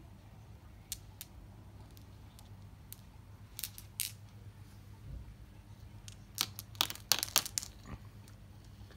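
Scattered clicks and light knocks of glass marbles and a plastic toy-car track piece being handled while the next race is set up, most of them bunched about six to seven and a half seconds in, over a faint low hum.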